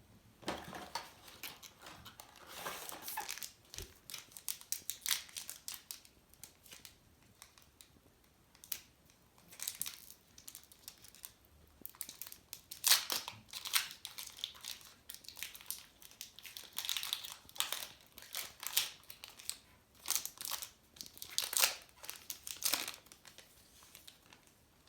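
Baseball card pack wrappers crinkling and tearing as packs are opened and the cards handled. The rustling comes in irregular bursts with short pauses between them.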